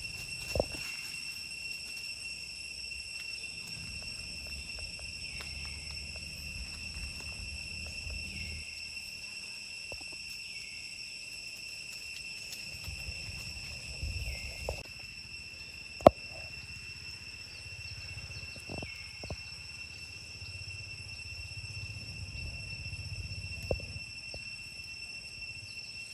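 Steady, high-pitched insect drone in a tropical forest, with a few scattered clicks and knocks, the sharpest about sixteen seconds in.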